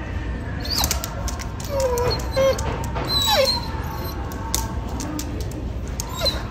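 Several short, squeaky animal cries that slide up and down in pitch, about four of them spread through the stretch, over faint background music.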